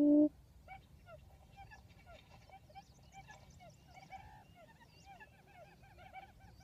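A loud, low hoot, the last of a repeating series, ends just after the start; then faint, busy chattering of many birds, short calls overlapping several times a second.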